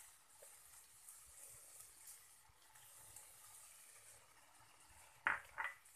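Faint, steady sizzle of cooked cabbage and peas in a hot wok just taken off the flame. Two brief, louder sounds come near the end.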